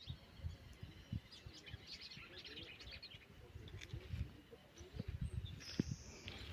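Wild birds chirping and singing, with quick overlapping calls that are busiest in the first three seconds and a high buzzy note near the end. Low knocks and rumble run underneath.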